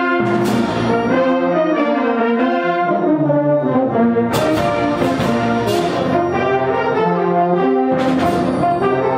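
Student concert band playing, brass to the fore, in sustained changing chords with a few sharp percussion hits.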